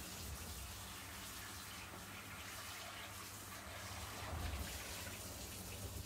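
Kitchen sink faucet running, the water splashing over a frying pan as it is rinsed by hand.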